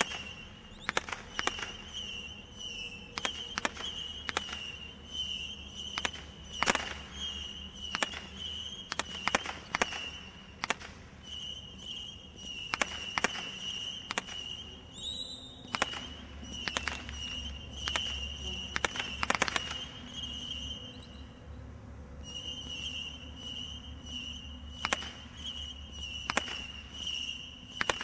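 Category 2 combination roman candle barrage (Xccelerator, 200 shots) firing: sharp reports at irregular intervals, roughly one a second, with a lull of a few seconds near the end. A steady high tone runs underneath.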